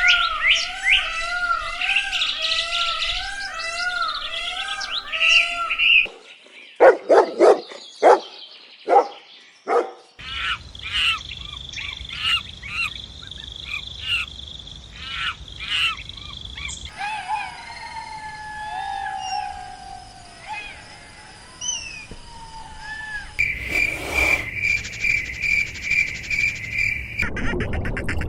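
A series of short bird-call recordings cut one after another: chirping and twittering calls, a run of repeated high notes, then scattered song notes. Near the end comes an even, pulsing trill, about three pulses a second.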